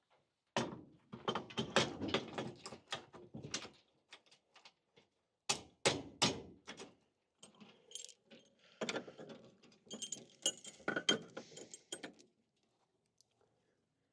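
Handling noise of hard objects: a run of knocks, clatters and rattles, with a metallic jingle about ten to eleven seconds in.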